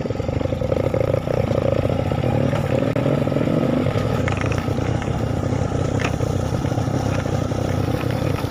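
Motorcycle engine running steadily on the move, with a few scattered knocks and rattles.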